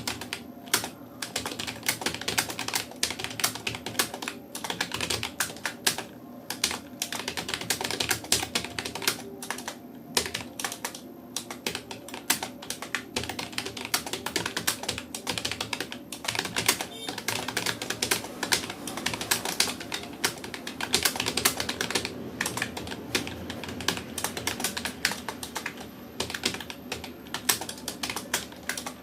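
Rapoo computer keyboard being typed on steadily and fast: a continuous stream of key clicks with only brief pauses.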